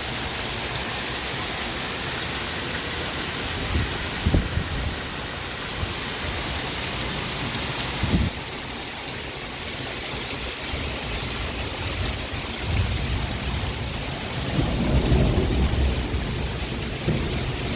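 Heavy rain pouring steadily in a thunderstorm. There are short low thumps about four and eight seconds in, and a longer, louder rumble of thunder near the end.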